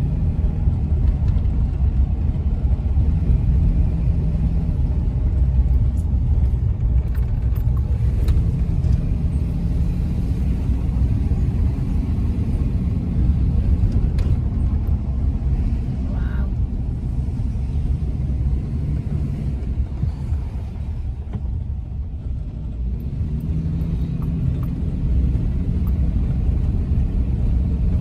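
Car engine and road noise heard from inside the cabin while driving: a steady low rumble that eases off a little around twenty seconds in and builds again near the end.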